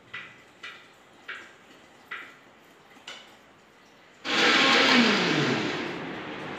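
A steel spoon scraping through set kesari onto a steel plate in about five short strokes. About four seconds in, an electric mixer grinder starts suddenly and runs loudly, its pitch sinking as it grinds batter.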